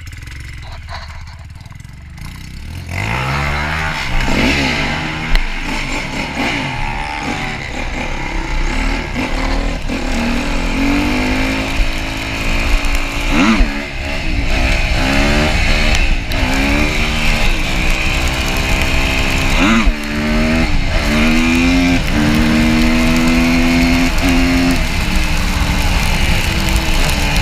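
Yamaha YZ250F dirt bike's single-cylinder four-stroke engine being ridden. It revs up and drops back again and again, its pitch climbing under throttle and falling at each gear change or throttle-off. It runs quieter for the first two or three seconds, then louder.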